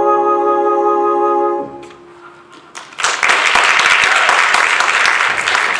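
The song's closing chord, held by the accompaniment, cuts off about a second and a half in. After a short lull, the audience breaks into applause and keeps clapping.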